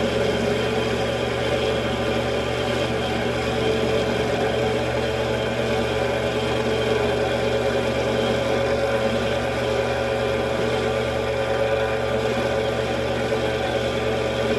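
Mini metal lathe running steadily, its motor and drive giving an even hum with several steady tones throughout.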